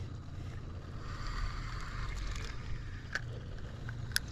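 Open-air ambience on a saltwater fishing pier: a steady low rumble with a soft hiss about a second in, and two small clicks near the end.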